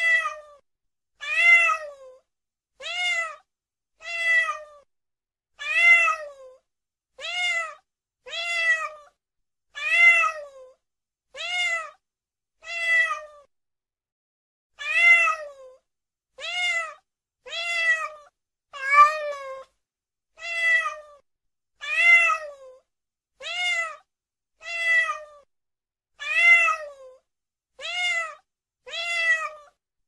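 Cat meowing over and over, one short meow about every second and a half, each call dropping in pitch at its end, with a slightly longer pause about halfway through.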